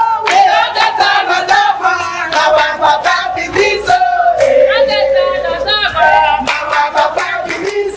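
A crowd of people singing and chanting together loudly, several voices holding wavering notes, with sharp beats running through.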